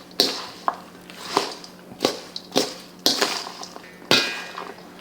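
Slaw with nuts being tossed in a mixing bowl: a utensil knocks and scrapes against the bowl in a series of separate strokes, about one every half second or so.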